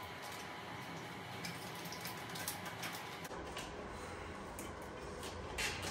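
Faint, scattered light clicks and taps of a motorcycle's stock exhaust muffler being twisted and worked free of its mounting clips.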